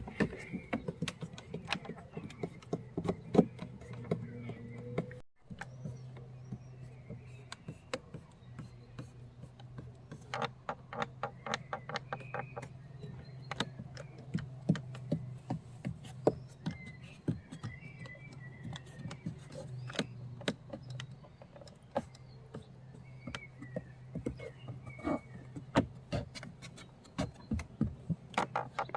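Interior door handles of a Seat Leon being worked over and over, creaking and squeaking with many clicks, over a steady low hum. The creak and squeak are a known annoying fault of these handles.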